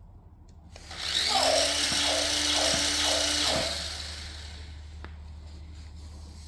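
A toy robot's small electric gear motor whirs for about three seconds, with a rhythmic wobble, then stops.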